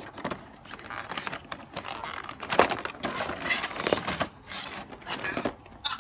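Clear plastic packaging crinkling and rustling in irregular bursts as a toy is pulled out of its bag and box.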